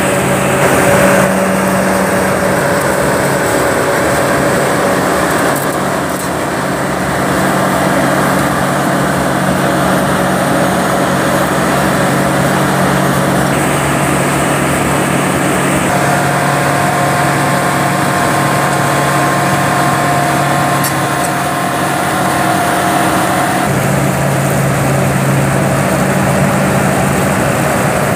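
350 hp Detroit Diesel engine of a Cedarapids 1900 profiler running steadily under working load while the machine mills and conveys material: a loud, continuous engine drone. Its tone shifts slightly a few times.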